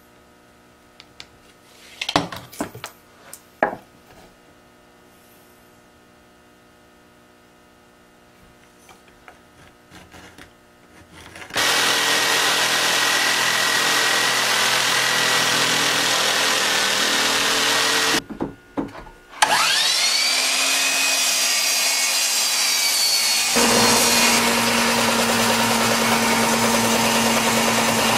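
A few knocks of a board being handled, then a corded jigsaw cutting cedar board for about six seconds before stopping. After a couple of clicks a bench-top belt-and-disc sander switches on, its whine rising as the motor comes up to speed, then runs on steadily, its sound deepening a few seconds later.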